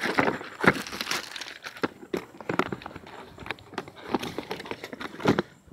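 Clear plastic wrapping crinkling and crackling as it is handled and pulled about, in irregular snaps, with a louder snap near the end.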